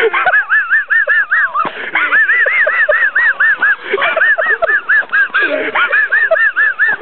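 High-pitched laughter in long runs of rapid 'ha' sounds, about five a second, with short pauses between runs.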